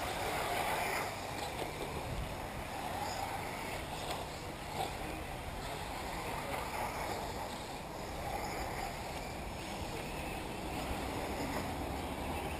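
Radio-controlled off-road model cars racing round a dirt track, a steady mechanical buzz that runs on without a break.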